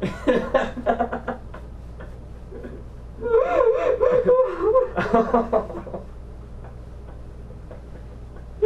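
A woman crying with emotion in short bursts, whimpering sobs and laughing breaths, with a wavering drawn-out cry a little past the middle.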